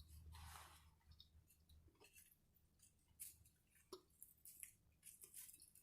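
Close-miked chewing of a sandwich and chips: soft, irregular wet clicks and crackles from the mouth, with a breathy sound in the first second.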